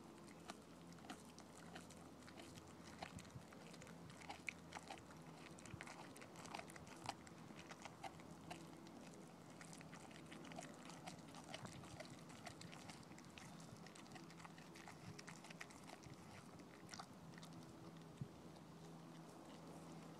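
A dog chewing and gnawing a whole chunk of raw green tripe: faint, irregular clicks and crunches of its teeth on the tough, wet stomach tissue, busier in the first half and sparser later.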